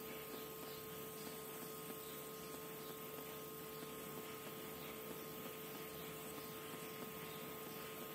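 Steady, even hiss with a faint constant hum: a gas stove burner on a low flame under a dry iron pan. There is no crackle or sizzle from the egg.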